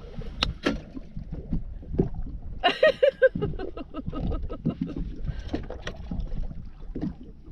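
Knocks, thumps and clatter in a small fishing boat as a freshly landed northern pike is handled, with sharp knocks in the first second and many small ticks later. A short voice-like exclamation comes about three seconds in.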